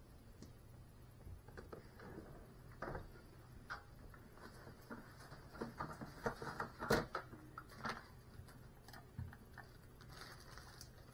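Faint, irregular small taps and rustling clicks over a low steady hum, most frequent and loudest about six to eight seconds in.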